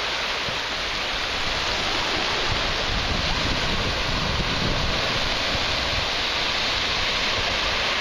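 Small surf breaking and washing over a shallow sandy shore as a steady hiss, with wind rumbling on the microphone.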